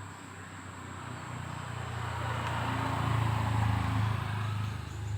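A motor vehicle passing by: its low engine hum grows louder to a peak about three to four seconds in, then eases off.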